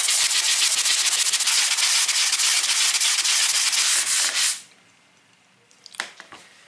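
Metal sole of a block plane being rubbed back and forth on 80-grit sandpaper to flatten it, a steady dense scraping that stops abruptly about four and a half seconds in. A couple of light knocks follow near the end.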